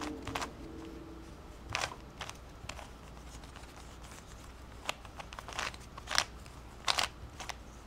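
Plastic clicks and snaps of a mirror windmill cube's layers being turned by hand, coming irregularly about once every half second to a second.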